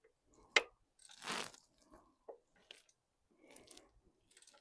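Scattered metal clicks and knocks of a wrench on an alternator mounting bolt as it is tightened, with a short rustle about a second in.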